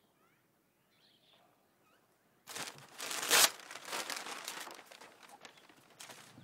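A sheet of newspaper crumpled up in the hands, starting about two and a half seconds in and loudest a moment later, then dying down to scattered crinkles and a few footsteps on a dirt path. Faint bird chirps are heard before the crumpling.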